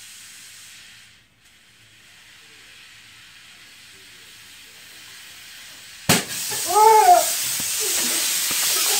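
Compressed air hissing faintly as a glass beer bottle is pressurised through a J-B Welded valve stem. About six seconds in comes a sharp pop as the valve stem blows off the bottle, then a loud, steady rush of escaping air.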